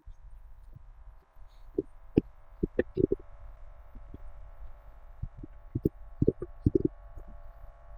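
Tomato sauce being tipped and scraped out of a pan onto pasta with a wooden spatula: a string of soft, irregular knocks and plops over a low steady hum.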